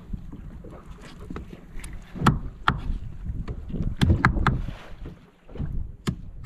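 Wind and the rumble of a small boat rocking at sea, with a few sharp knocks and clicks a couple of seconds in, a cluster about four seconds in, and one more near the end.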